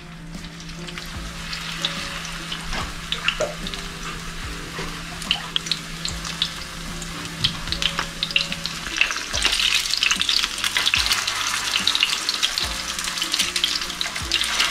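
Fish hash cakes of grated potato and fish sizzling and crackling as they fry in a pan. The sizzle thickens and grows louder about nine seconds in.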